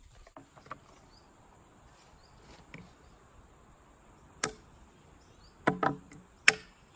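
Small axe chopping into a branch laid on a wooden stump: a single sharp chop a little past halfway, then a few quick, louder strikes near the end.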